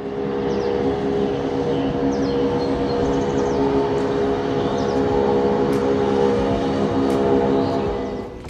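Motorboat engine running steadily at speed as the boat passes, a constant drone that fades out near the end.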